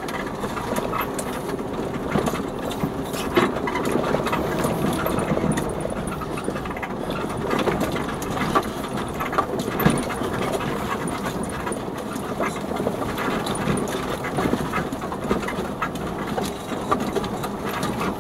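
Off-road vehicle's engine running at low speed, heard from inside the cab, with frequent knocks and rattles as it bumps along a rutted dirt track.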